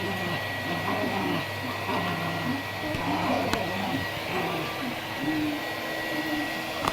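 Household vacuum cleaner running steadily with a thin high whine over its motor hum, with a voice-like sound in the background.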